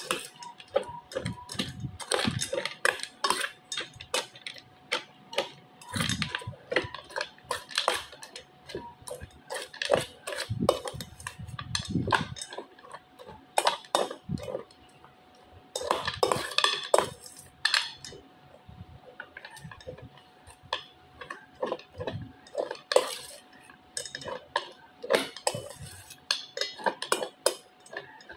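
Metal spoon clinking and scraping against a stainless steel bowl as dry kibble and moist food are stirred together, in irregular strokes with short pauses.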